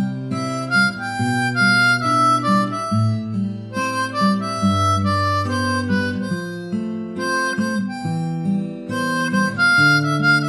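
Background music led by a harmonica, playing a melody over held chords.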